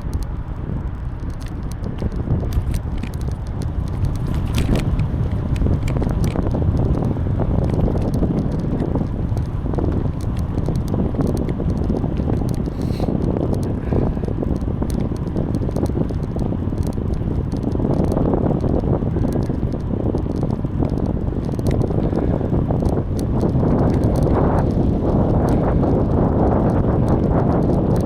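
Wind buffeting the microphone and tyre rumble of a bicycle being ridden, with scattered small clicks and rattles; the wind grows louder about two-thirds of the way through.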